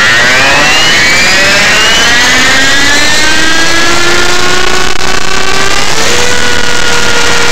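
Align T-Rex 500 electric RC helicopter spooling up on the ground, heard close up from a camera strapped to it. The whine of its motor and drive gears rises steadily in pitch, then levels off at one steady pitch about six seconds in as the rotor reaches flying speed.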